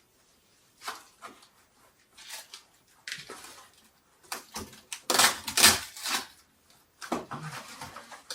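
Rustling and scraping of packaging being handled and opened around a boxed chimney pipe: a string of irregular bursts, the loudest about five to six seconds in.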